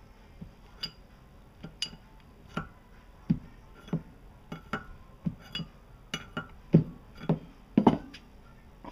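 A steel 19 mm combination wrench clinking against a sensor threaded into a cylinder head as it is worked loose in short strokes. The sharp metal clinks come irregularly, about two a second, and are loudest near the end.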